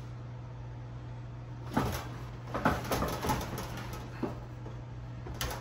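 Electric stove being shoved and bumped into place on a bare particleboard floor: a cluster of knocks and clattering thuds about two to three seconds in, then a couple of single knocks, over a steady low hum.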